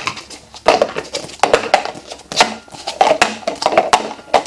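Clear plastic cups clacking against each other and knocking down on wooden tabletops as two people stack and unstack them in a hurry: a fast, irregular clatter of light knocks.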